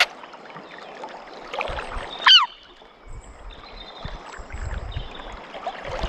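River water rushing steadily, with one short, high squeak that sweeps downward about two seconds in and a few low thumps.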